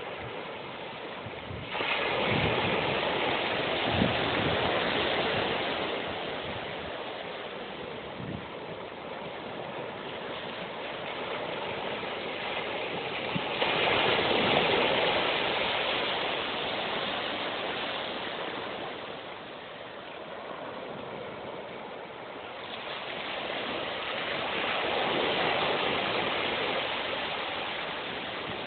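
Small sea waves breaking and washing up a sandy beach, a steady hiss that swells three times as each wave comes in and then fades.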